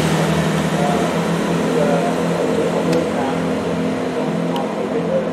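Diesel engines of a Class 166 Turbo multiple unit running steadily as the train pulls away along the platform. The level eases off slightly as it moves away.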